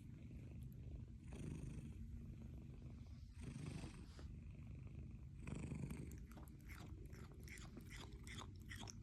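Munchkin cat purring steadily, the purr swelling every couple of seconds. From about two-thirds in, quick crunchy chewing clicks join it as the cat munches a snack.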